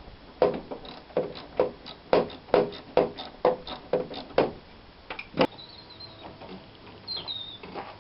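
A series of about a dozen hard knocks, two or three a second, with one sharp click about five and a half seconds in and faint high squeaks after it.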